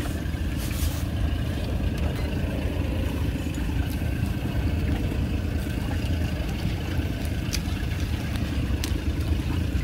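Small boat's outboard motor running steadily at trolling speed: a low, even rumble, with a few faint clicks over it.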